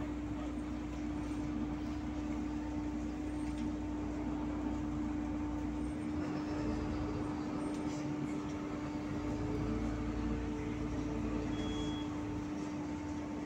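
Inside a moving city bus: the bus running with a steady drone, a constant pitched hum over a low rumble.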